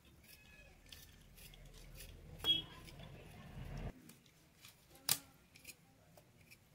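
Food being cut by hand with a blade: faint, repeated cutting clicks, with two sharper knocks about two and a half and five seconds in. A low rumble underneath stops suddenly about four seconds in.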